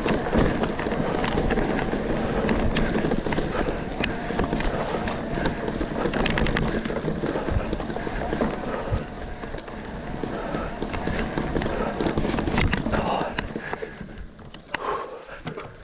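Mountain bike riding over a rough trail: wind rushing over the microphone, with the bike's tyres and frame rattling and clicking over stones. It eases off near the end.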